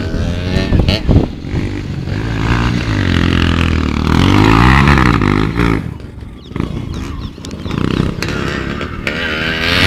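Motorcycle engine revving under load, its pitch climbing to the loudest point about halfway, falling off sharply a little after that, then rising again.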